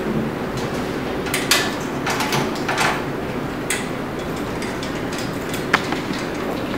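Photo booth cabinet doors being unlocked with a key and swung open: a scattering of clicks and light knocks, the sharpest about a second and a half in and again near six seconds.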